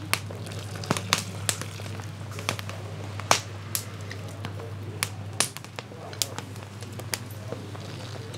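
Wood fire crackling under a boiling cauldron of fish stew: sharp, irregular pops and snaps over a steady low rumble.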